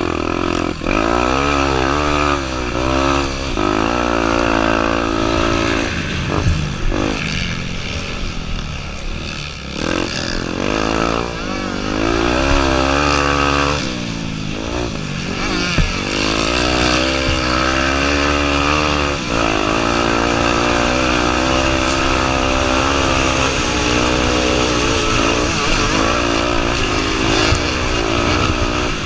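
Honda Tornado 250's single-cylinder four-stroke engine running hard off-road, its pitch repeatedly rising and dropping with throttle and gear changes.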